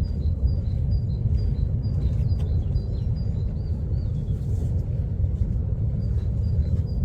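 Kilauea's lava fountain giving a deep, continuous rumble. Over it runs a faint high chirping, two alternating notes repeated a few times a second, which pauses about four seconds in and resumes near the end.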